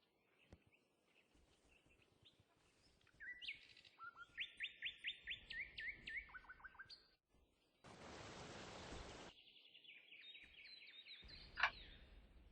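A bird singing in rapid trills of short, downward-sliding chirps, about five a second, with a brief burst of hiss lasting just over a second near the middle.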